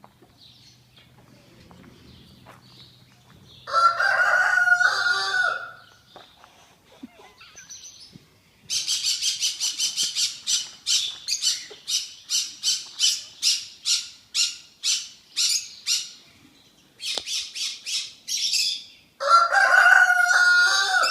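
Rooster crowing twice, one long call about four seconds in and another near the end. In between, another bird gives a long fast series of short, harsh, high calls, about two a second.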